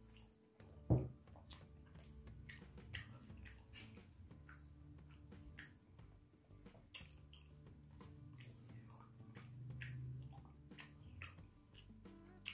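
Close-up eating sounds: wet chewing and smacking of rice and beef rendang, with fingers working the rice on the plate, as a scatter of short clicks. A single dull thump about a second in is the loudest sound.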